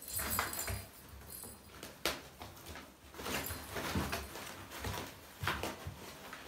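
Kittens playing around a fabric play tunnel: scattered scrabbling of paws and claws, rustling and light knocks, coming irregularly about once a second.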